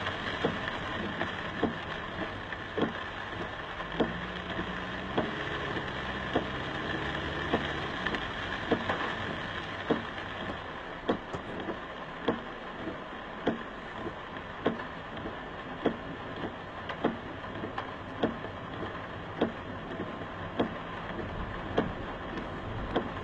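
Inside a car in heavy rain: steady rain and road noise, with the windshield wipers knocking about once every 1.2 seconds as they sweep.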